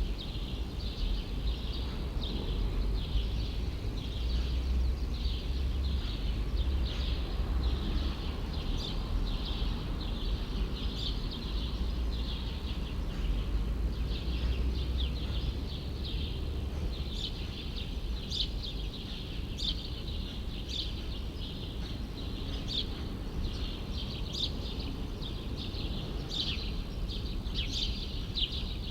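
Birds chirping over and over in short, quick notes, growing denser and sharper in the second half, over a steady low rumble of city traffic.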